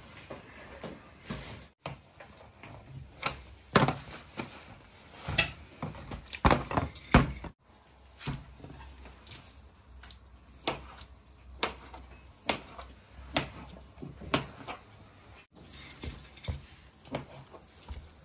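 Kitchen knife chopping through a log of layered samsa dough and striking the worktable, a sharp knock with each cut, coming about once a second through the middle stretch.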